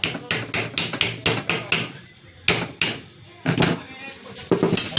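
Hammer tapping on the metal parts of a ceiling fan being reassembled: a quick run of about eight taps in the first two seconds, then a few more spaced strikes.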